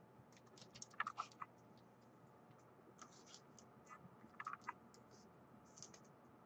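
Faint scattered clicks and flicks of football trading cards being handled and flipped through. The sharpest cluster comes about a second in, with smaller ones around three and four and a half seconds.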